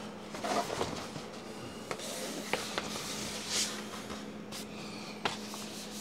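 Sheet of self-adhesive film rustling and crackling as it is handled and pressed onto a refrigerator's side by hand, with a few small sharp clicks and taps, over a faint steady low hum.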